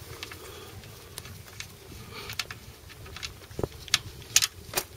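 Oil drain plug being unscrewed by hand from the oil pan of a 2007 Toyota Prius: faint scattered clicks and taps of the plug and gloved fingers, with a few sharper clicks in the last second and a half as the plug comes free.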